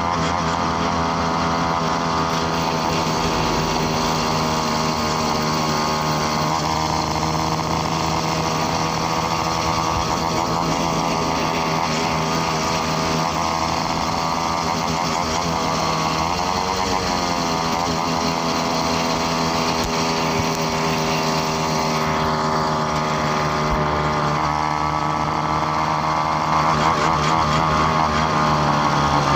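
Small motorbike engine running steadily at cruising speed under the rider, its pitch dipping and coming back up about halfway through as the throttle is eased and reopened, then falling at the very end as it slows.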